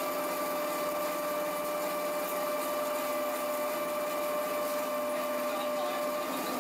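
Horizontal boring and milling machine cutting a metal block under flood coolant: a steady machining whine over the hiss of coolant spray. The lower note of the whine drops out near the end.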